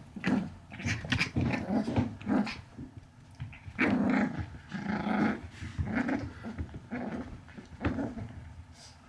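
A small Pomeranian–poodle mix dog growling again and again in short growls with brief gaps, a longer stretch of growling about four seconds in, reacting to toys set in front of it.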